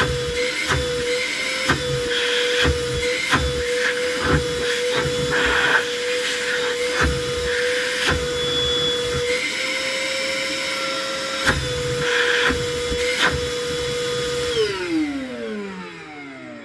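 Ozito PXC 18 V cordless wet and dry vacuum's motor running with a steady whine, with scattered knocks and thumps over it. Its pitch steps up for a couple of seconds about ten seconds in. Near the end it is switched off and winds down.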